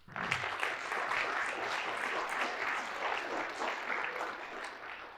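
Audience applauding, the applause dying away near the end.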